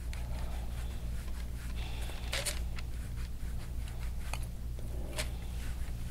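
Soft rubbing of hands or elbow working over skin in a deep-tissue massage, with a few sharp clicks, the loudest about two and a half seconds in, over a steady low hum.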